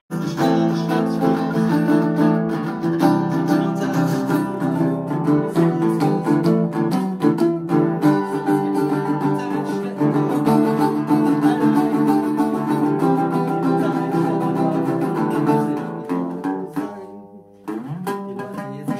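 Metal-bodied resonator guitar played in a steady run of picked notes and chords. It falls away briefly near the end, then starts again.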